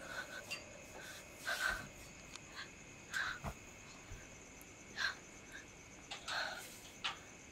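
Quiet handling noises as a curtain is brushed aside and a metal window grille is gripped: short soft rustles every second or so and one sharp click about halfway through. A faint steady high-pitched tone runs underneath.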